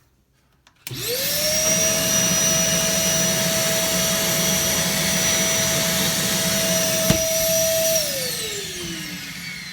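Nutone Pure Power central vacuum power unit switched on about a second in: its motor spins up fast to a steady high whine with a rush of air, running with the inlets closed. A sharp click comes near the end, then it is switched off and the whine falls in pitch as the motor winds down.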